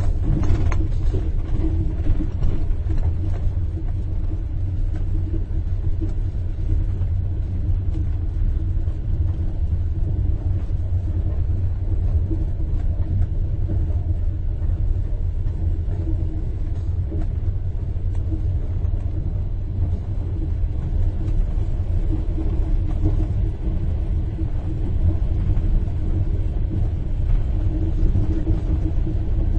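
Inside a moving train's compartment: a steady low rumble of the running train. A spoon clinks faintly against a cup a few times near the start.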